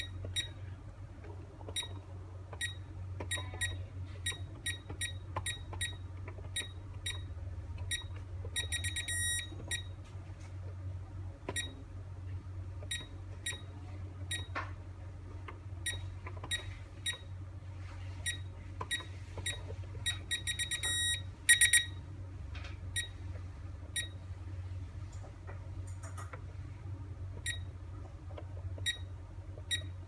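Visonic PowerMax Express alarm panel keypad beeping with each key press as a phone number is entered, short beeps every half second to second, with two quick runs of rapid beeps about nine and twenty-one seconds in. A low steady hum runs underneath.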